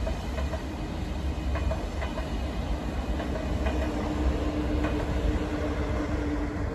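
ÖBB Railjet passenger train passing at speed: a dense rumble with irregular wheel clicks over the rail joints. A steady electric hum builds through the second half as the train's electric locomotive approaches.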